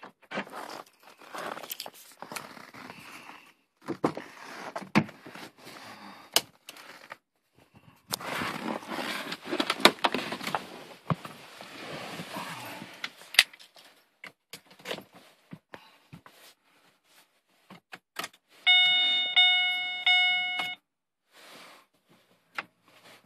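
Rustling, crunching and sharp clicks as the frost-covered car door is opened and someone climbs into the seat, with keys jangling. About three quarters of the way through, the Chevrolet Captiva's dashboard warning chime sounds: a steady electronic tone lasting about two seconds as the ignition is switched on.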